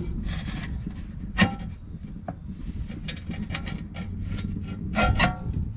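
Quarter-inch steel plate being shifted inside a kamado grill with a metal hook: a sharp metal clank about one and a half seconds in, light scraping, and a ringing clatter near the end, over a steady low rumble.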